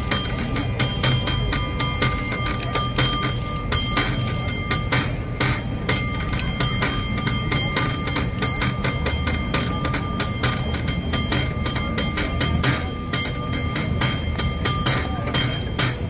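San Francisco cable car bell being rung by pulling its overhead cord: quick, clanging strikes in a varied rhythm, with the bell ringing on between strikes.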